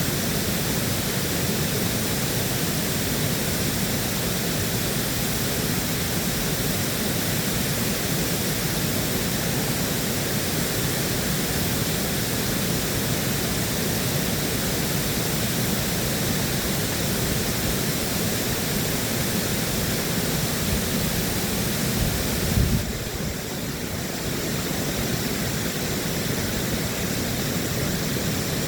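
Water pouring through Ashburnham Dam, a steady rushing noise heaviest in the low range. A brief thump comes near the end.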